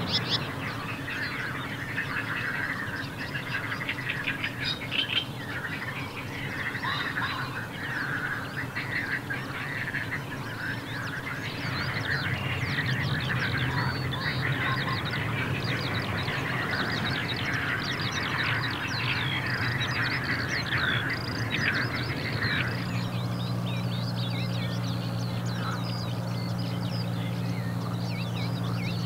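Dawn chorus: many birds singing and calling at once, a dense mix of chirps and trills. A steady low hum comes in underneath a little over three-quarters of the way through.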